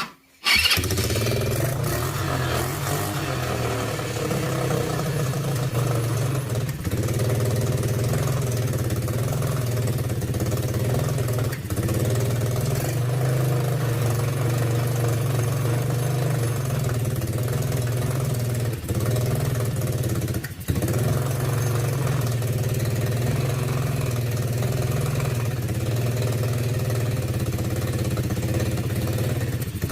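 Coolster ATV's small single-cylinder four-stroke engine running at a steady idle on a newly replaced carburetor, with a few brief dips in sound.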